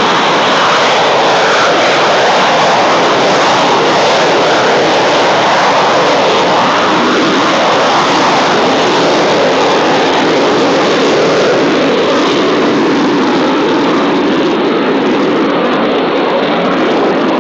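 Panavia Tornado IDS jet, its two RB199 turbofans giving a loud, steady roar that swells slowly without letting up.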